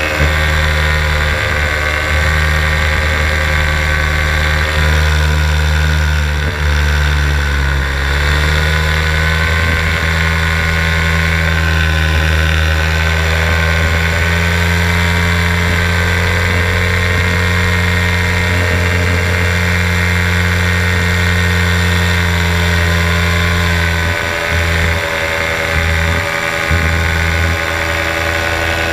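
Paramotor engine running steadily in flight, its pitch dipping briefly and coming back up about eight seconds in.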